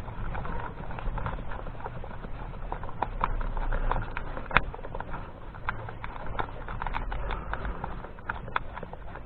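Irregular clicks and knocks of hands and tools working loose plastic and metal parts in a car's engine bay, with one sharper knock about four and a half seconds in.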